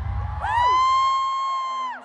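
A single high-pitched whoop from a concert fan. It rises at the start, holds for about a second and a half, then cuts off sharply, while the concert music fades beneath it.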